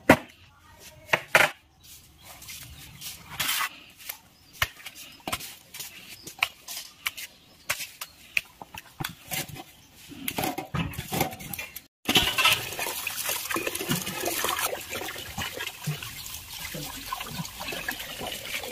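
A knife chopping eel on a wooden block, sharp irregular knocks with pauses between them. About two-thirds of the way through it changes to the cut eel pieces being rubbed and washed by hand in water in a metal pot, a continuous splashing and sloshing.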